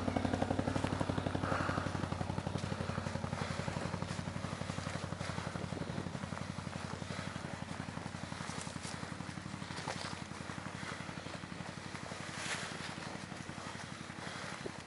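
ATV engine idling with an even, fast pulse, slowly getting quieter.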